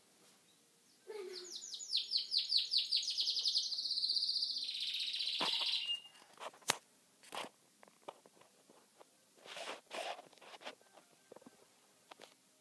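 A caged canary singing one song phrase of about five seconds: a run of rapidly repeated notes that runs into a fast, high trill and stops sharply. A few short separate calls and a sharp click follow.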